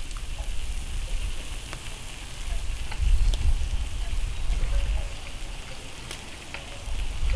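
Food sizzling on a round flat-top griddle, a steady hiss. Wind buffets the microphone in uneven low rumbling gusts, the loudest part of the sound, and a few faint clicks come through.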